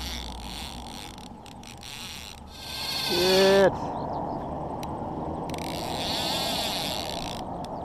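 Fly reel's drag whirring in wavering stretches as a hooked fish pulls line off against it. A short exclamation, "Good", comes a little before halfway.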